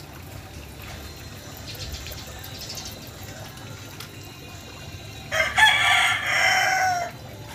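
A rooster crows once, starting about five seconds in: a single call lasting nearly two seconds that stands out over faint yard background.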